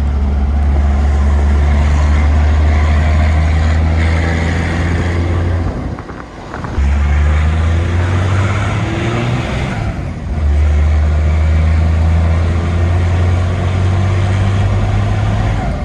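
Nissan GQ Patrol driving at road speed: a steady low engine and drivetrain drone with road noise, easing briefly about six and ten seconds in. No noise from the freshly rebuilt rear diff; it sounds all sweet.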